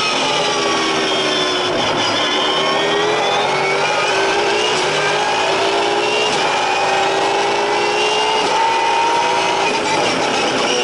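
V8 Supercar's V8 engine at racing speed, heard from inside the cabin. The revs fall over the first couple of seconds, then climb and hold high, easing off again near the end.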